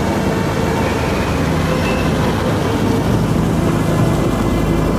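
Diesel engine of a Mitsubishi Fuso road-rail maintenance truck running steadily as it drives past close by along tram tracks, with a car following it.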